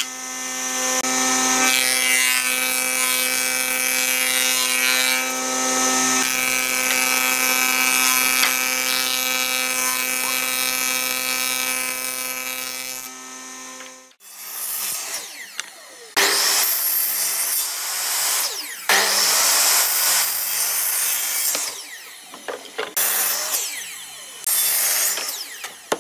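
Thickness planer running steadily, a steady machine hum with the hiss of its cutterhead shaving a pine board, stopping abruptly about halfway through. After that comes a series of separate power-saw cuts, a miter saw's motor spinning up, cutting and winding down each time.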